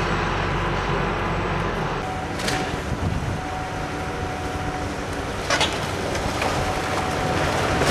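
Construction machinery running steadily, then a long-reach demolition excavator working on a brick tenement: its engine running, with masonry crashing down twice, about two and a half and five and a half seconds in.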